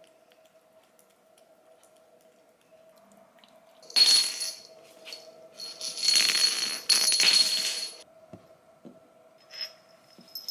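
A jingling metallic rattle in two bursts: a short one about four seconds in and a longer one lasting about two seconds from six seconds in. A faint steady hum runs underneath.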